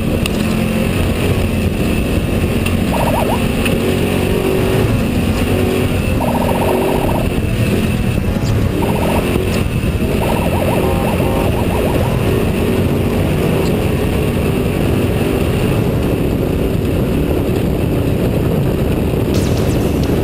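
Off-road desert race truck's engine running hard at speed, with dense rumble from the truck.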